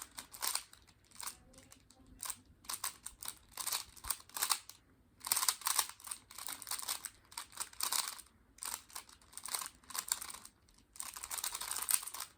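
3x3 Rubik's cube being turned rapidly by hand: quick runs of plastic layers clicking and scraping as they rotate, broken by short pauses.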